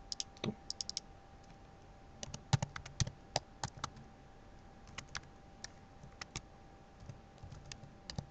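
Typing on a computer keyboard: quick runs of keystroke clicks with short pauses between them, over a faint steady hum.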